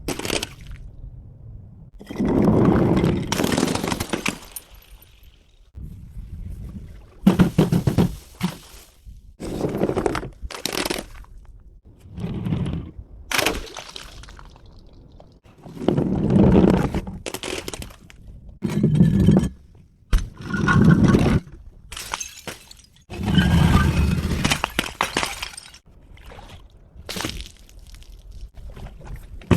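A series of about ten separate crashes and crunches, each lasting a second or two with short gaps between: glass bottles and other objects being smashed and crushed.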